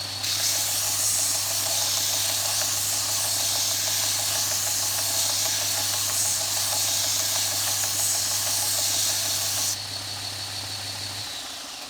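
Belt sander running, with the end of a wooden block pressed against the moving sanding belt and worked left and right, making a loud, steady, grinding hiss over the motor hum. Near the end the wood comes off the belt, the hiss drops away, and the motor is switched off and winds down.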